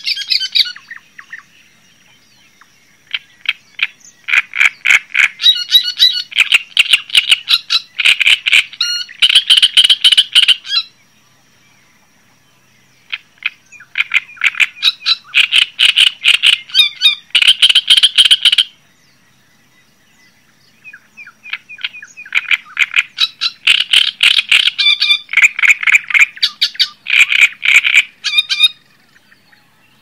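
A songbird singing in loud phrases of rapid chattering notes, each phrase several seconds long, with pauses of a second or two between them.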